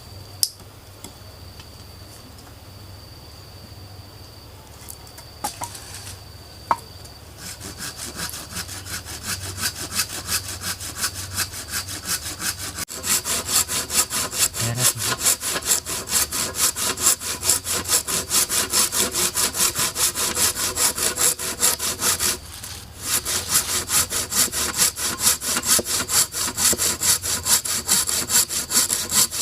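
Hand saw cutting through wood in quick, even back-and-forth strokes, about three a second. The sawing starts a few seconds in, gets louder, and pauses briefly about two-thirds of the way through before carrying on.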